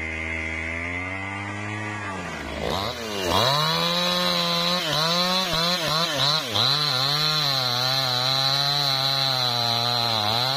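New West 628 two-stroke chainsaw sawing through lamtoro wood. The engine runs steadily, revs up about three seconds in, then dips and recovers in pitch several times as the chain bites under load, with a high steady whine over it. Its pitch drops off right at the end.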